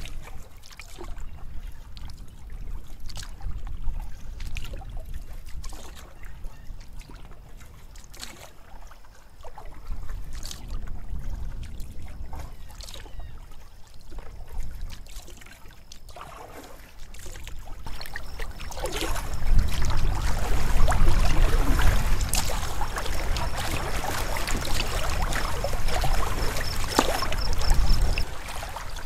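Canoe paddle strokes and water trickling and lapping against a solo canoe's hull, with a low rumble on the microphone. From about two-thirds of the way in, the water noise grows much louder and fuller as the canoe moves onto choppier open water.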